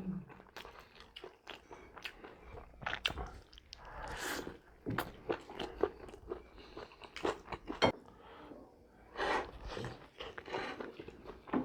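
Close-up eating: chewing and biting into homemade chicken pizza with a thin crust. It is a run of irregular small crunches and mouth clicks, with a few louder bites.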